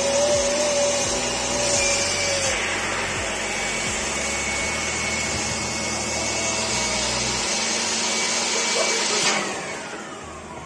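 Electric air pump running steadily as it inflates a plastic paddling pool, then switched off near the end, its motor winding down with a falling whine.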